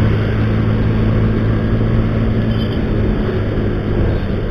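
Honda automatic scooter's small single-cylinder engine running steadily at cruising speed, with a constant rush of road and wind noise.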